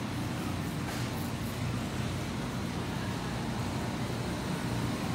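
Steady low rumble and hum of a large warehouse store's background noise, the ventilation and refrigerated meat cases running, with no distinct events.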